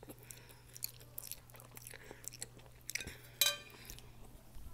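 Slurping and open-mouthed chewing of spicy noodles: wet smacks and clicks, with one louder, sharp ringing click about three and a half seconds in.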